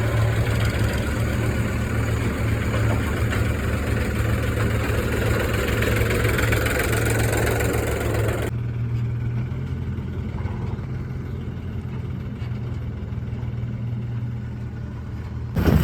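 Heavy diesel engine idling steadily with a deep, even hum. About eight and a half seconds in, the higher hiss drops away abruptly and the engine continues a little quieter.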